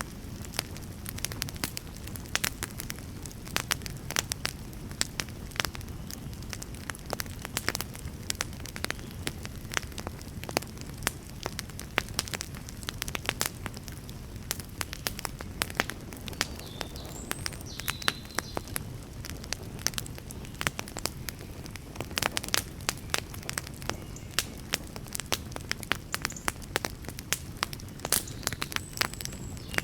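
Wood fire burning, with a steady low rumble of flame and many irregular sharp crackles and pops from the burning logs.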